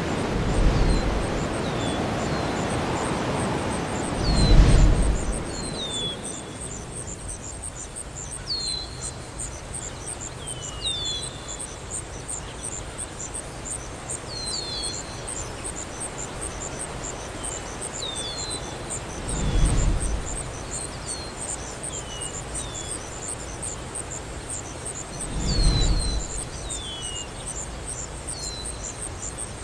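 Outdoor nature ambience: a steady, rapid, high insect trill with birds giving short falling chirps over it. A broad rush of wind-like noise fades out over the first few seconds, and brief low rushes swell and pass about four seconds in, near twenty seconds and about twenty-six seconds.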